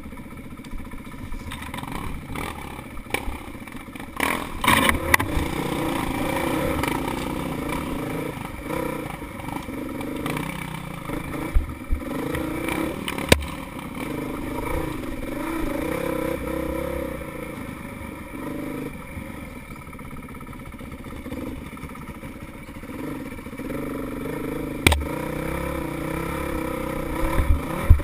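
Honda CRF450X single-cylinder four-stroke dirt bike engine running under way, revs rising and falling with the throttle. Now and then a sharp knock or clatter as the bike hits ruts and roots.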